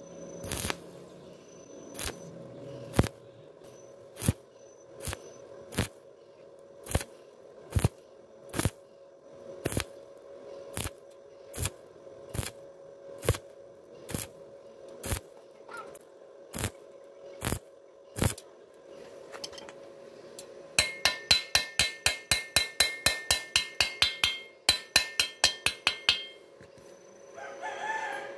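Stick-welding arc on thin steel tubing, struck in short pulses, a sharp crackle about once a second over a faint steady hum. About 20 seconds in it gives way to quick, ringing metallic taps, around five a second, for some five seconds: slag being chipped off the fresh weld bead.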